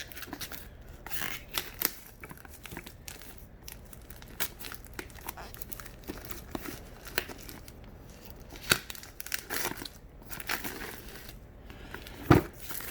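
Product packaging crinkling and rustling as a boxed docking station is handled and unwrapped, with scattered small clicks and one sharp knock near the end.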